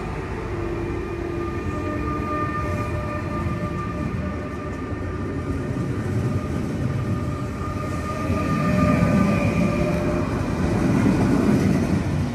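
Passenger train passing close beneath a footbridge: a continuous rumble with a steady whine of several tones above it. The rumble grows louder about eight seconds in.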